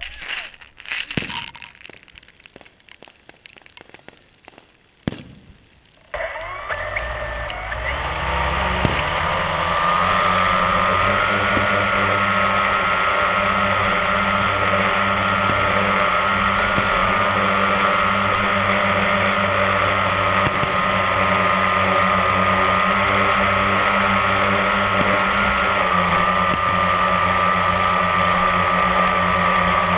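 A few clicks and knocks, then about six seconds in a drone's electric motors and propellers spin up to a steady whine and keep running in flight. It is heard from the drone's own onboard camera.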